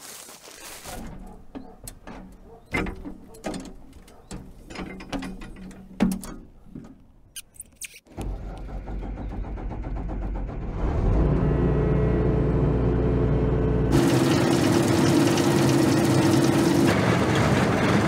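Claas Lexion 530 combine harvester: scattered mechanical clicks and knocks, then about eight seconds in a low engine rumble sets in suddenly and builds over a few seconds into a steady run. About fourteen seconds in the sound changes to a denser machine noise with a steady whining tone.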